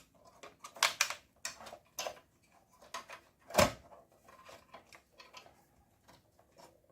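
Scattered clicks and knocks of a power supply unit being slid and fitted into a Dell Inspiron 3268 desktop case, plastic and sheet metal tapping together, with one louder knock about three and a half seconds in.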